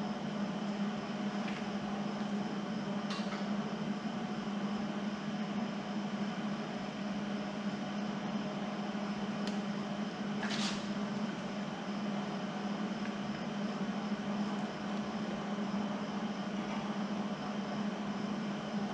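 Steady machine hum with a constant low tone, broken by a few light clicks or taps about three seconds in and twice around the middle.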